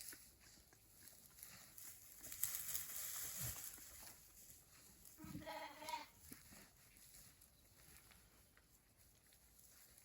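A single sheep's bleat, a wavering call of just under a second, about halfway through. A few seconds before it comes a brief rush of hissing noise.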